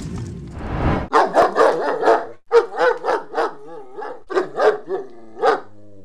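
Intro music swelling up and cutting off about a second in, followed by a dog barking repeatedly in quick runs of short barks with brief pauses between them.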